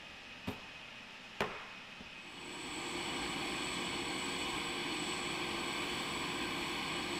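Two sharp knocks about a second apart from the metal cabin floor panels being handled. From about two seconds in, the steady whine and rush of the Boeing 747-400's turbines running, with a high steady tone on top.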